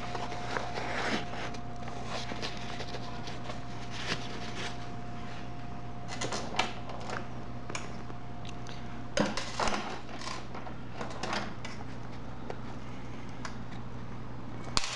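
Scattered small clicks and fabric rustling as hands handle the metal parts of a snap fastener and work it through the backpack's fabric, over a steady low hum. A faint steady whine stops about eight seconds in, and the sharpest clicks come a little past halfway and again near the end.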